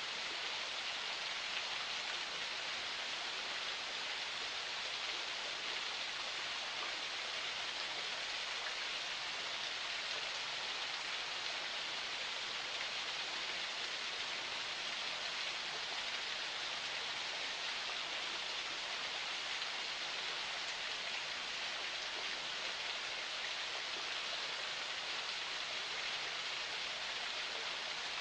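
Water of a forest spring flowing and splashing, an unbroken bright, hissing rush.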